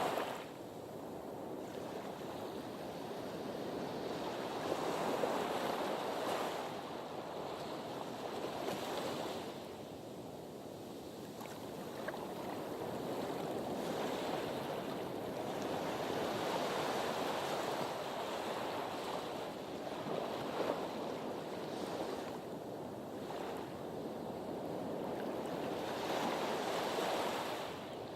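Sea waves washing against a harbour breakwater, the surf swelling and falling back in slow surges every few seconds.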